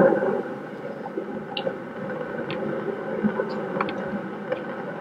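Steady hiss of room noise in a live recording, with a few faint clicks and small knocks scattered through it. A louder blur of sound fades out in the first half second.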